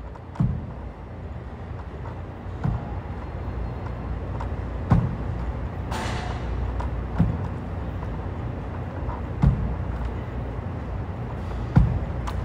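Dumbbell power cleans on a wooden floor: a dull thud with each rep, six in all, about every two seconds, over a steady low hum.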